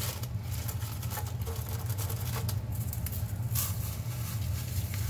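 Saltine crackers being crushed by hand, a run of dry crackling and crunching as the crumbs fall into the bowl of raw ground beef.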